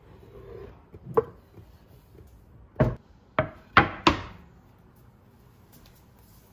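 Five sharp knocks of hard kitchenware against a wooden surface during food preparation: one about a second in, another near three seconds, then three in quick succession, each with a brief ring.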